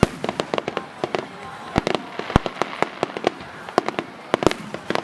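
Aerial fireworks shells bursting in a dense finale barrage: sharp bangs and pops, several a second at irregular spacing. Now and then a deeper, louder boom stands out.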